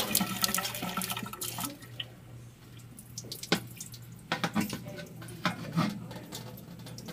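Water running and splashing onto an almost horizontal baking sheet, easing off about two seconds in, then a few scattered drips and splashes.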